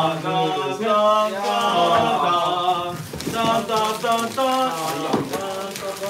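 Several male voices chanting together in long held notes, a wordless sung tune, with a few crackles of bubble wrap being pulled off.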